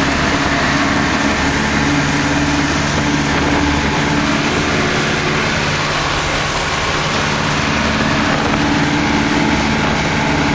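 Piper Cub's engine and propeller running steadily in flight, heard from the cockpit as a constant drone with a strong rush of air over it.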